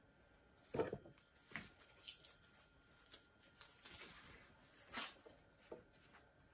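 Rustling and brushing as printed fabric graduation stoles are handled and held up, a few soft scrapes and swishes, the loudest about a second in.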